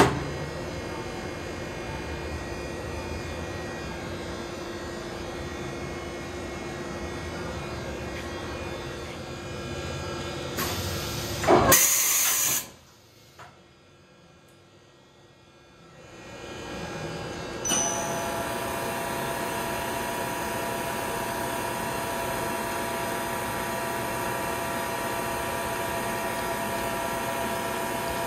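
Mori Seiki SV-500 vertical machining center running under power: a steady machine hum with a few steady tones. About twelve seconds in comes a loud short hiss, then a few seconds much quieter, before the hum comes back with higher steady tones.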